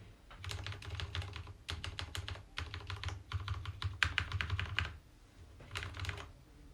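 Typing on an Akko x Ducky Zero 3087 mechanical keyboard with lubed switches: quick runs of keystrokes in bursts, with a short pause about five seconds in.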